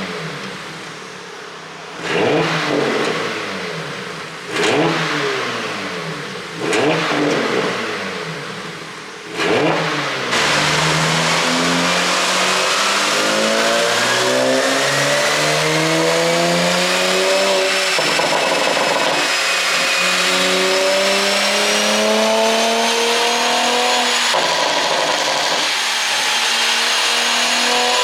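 2018 Porsche Panamera 4S (971) twin-turbo V6 with an ECU tune for exhaust pops, revved in four sharp blips about two seconds apart, each note falling away afterwards. From about ten seconds in, the engine runs continuously with its pitch climbing, dropping back twice, as in upshifts under acceleration, with a faint rising whine above it.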